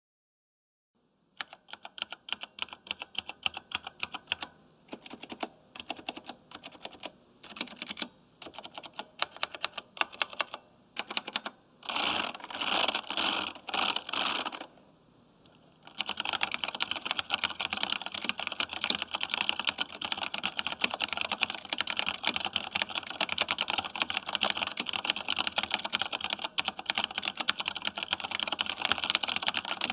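Typing on a Compaq G80-11800 keyboard with vintage Cherry MX Brown switches, a plateless build and thick keycaps. After a second of silence come short clusters of keystrokes about once a second, then a denser run, a brief pause, and from about halfway on steady fast typing.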